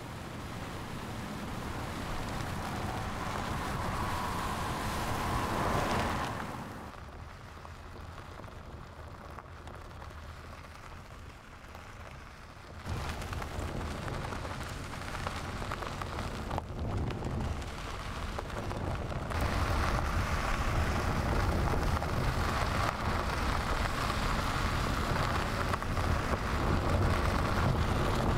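Tyres of a Mercedes-Benz EQC electric SUV rolling over a dirt and gravel track: a steady noisy rush with no engine note. It swells over the first six seconds, falls away suddenly, then comes back louder in two abrupt steps.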